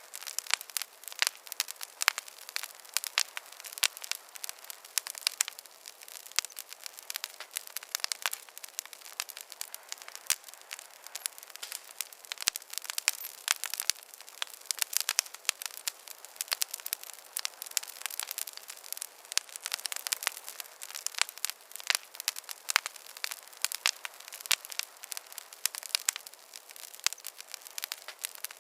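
Wood campfire crackling: a dense, irregular run of sharp pops and snaps over a soft hiss.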